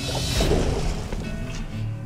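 Water splashing as a big northern pike is scooped into a landing net and thrashes, loudest about half a second in, over background music.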